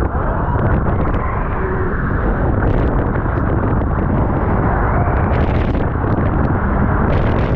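Steady wind roar buffeting the action-camera microphone of a rider on the Toutatis roller coaster as the train runs at speed, muffled and dull because the microphone is wet. A few brief rattles cut through the roar.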